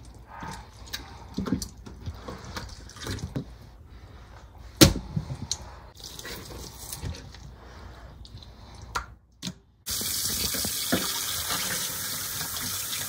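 Scattered knocks and handling sounds as raw pork ribs are worked in a stainless-steel sink, with one sharp knock about five seconds in. About ten seconds in, a kitchen tap starts running steadily into the sink over the ribs.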